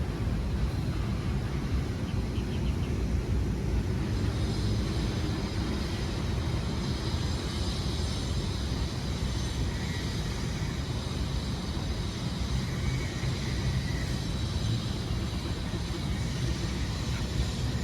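Steady low background rumble with no speech, with a faint high steady whine joining in about four seconds in.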